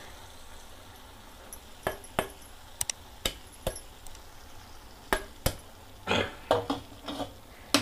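A spoon clinking and knocking against a cooking pan while boiled green gram is stirred into a thick masala: a dozen or so sharp clinks at uneven intervals, some in quick pairs.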